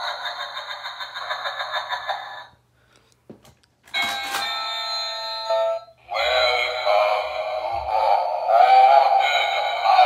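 Battery-powered Halloween talking doorbells playing through small tinny speakers: the witch-face doorbell's sung voice track ends about two and a half seconds in. After a short pause and a click, the pumpkin-face doorbell plays a ding-dong chime and then its talking voice track.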